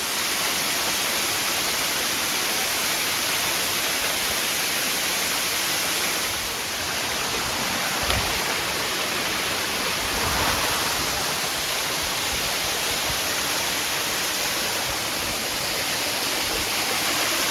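A large waterfall rushing steadily, its water crashing into the pool below in a dense, even roar of noise.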